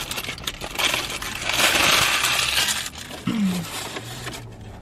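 A dense crackling, crinkling noise made of many fine clicks, swelling to its loudest about two seconds in and dying away soon after, followed by a short hummed 'mm'.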